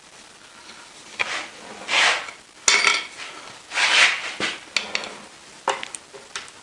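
A lathe tailstock being pried loose from the bed ways: metal-on-metal scraping in a few rough rubs, the loudest about two and four seconds in, with several sharp clinks and knocks between them.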